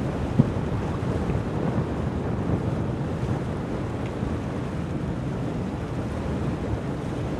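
Steady low rumble of wind buffeting the microphone, with one short thump about half a second in.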